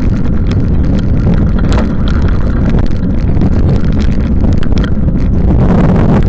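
Loud steady wind rumble on the microphone of a bicycle riding in the rain, with many scattered sharp ticks over it.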